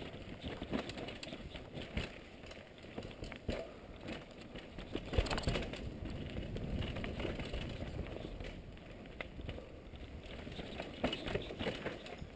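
Mountain bike descending a dirt and root trail: tyres rolling and skidding over the ground, with frequent rattles and knocks from the bike as it hits bumps, and louder clatters about five seconds in and again near the end.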